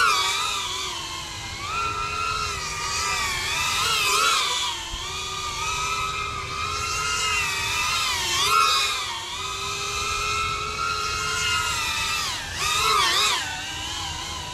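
GEPRC CineLog 35 FPV drone's brushless motors and propellers whining in flight. The pitch rises and falls as the throttle changes, with quick up-and-down swoops about 4, 8 and 13 seconds in.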